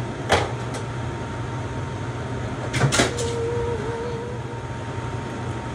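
Kitchen clatter over a steady low hum: two light knocks just after the start and a louder clatter about three seconds in, like a cupboard or utensils being handled, followed by a short wavering tone.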